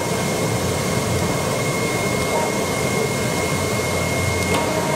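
AOKE DCH-series CNC cardboard cutting table running as its tool head cuts 2 mm E-flute corrugated sheet: a steady whir with a constant high whine, and a faint click near the end.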